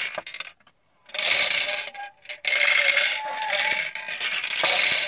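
Toy bingo cage cranked by hand, its plastic balls rattling and tumbling inside the spinning plastic globe as a ball is drawn. The rattle comes in spells: it stops briefly about half a second in, starts again a second in, and runs on with a short break near the two-second mark.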